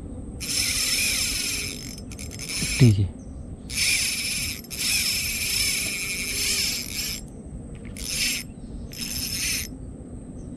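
Small spinning reel, a Daihan Shinobi 1000, being cranked in about six short bursts of whirring that start and stop abruptly. A short low falling call sounds once about three seconds in.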